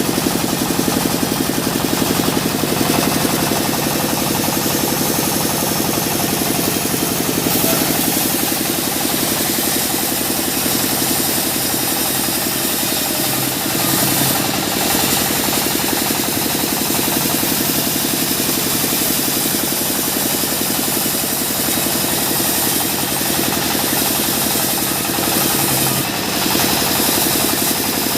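Sawmill machinery running steadily: an engine-driven saw with a fast, even engine rhythm under a loud hiss that reaches high up.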